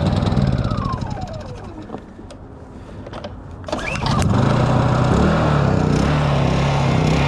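Honda portable generator being started with the choke on. The engine turns over and dies away in falling pitch, then about four seconds in it catches and runs steadily.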